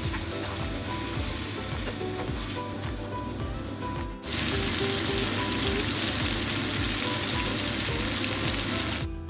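Mixed vegetables sizzling as they fry in a pan and are stirred, the sizzle jumping louder about four seconds in. Light background music plays over it.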